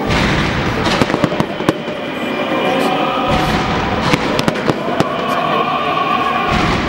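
Aerial fireworks display: a dense run of bangs and crackling from shells bursting overhead, starting abruptly with a loud burst.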